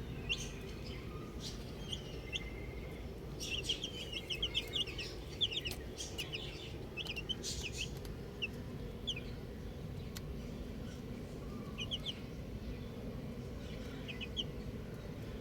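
Baby chicks peeping: many short, high cheeps, busiest a few seconds in and sparser afterwards, over a steady low background noise.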